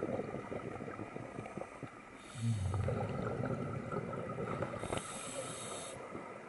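Scuba breathing through a regulator underwater: two short hissing inhalations, about two and five seconds in, with crackling exhaust bubbles between them.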